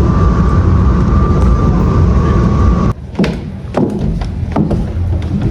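Loud, dense low rumbling noise with a thin steady hum above it, typical of wind buffeting the microphone on a ship's open deck; about three seconds in it cuts off abruptly to a quieter room where several sharp knocks sound.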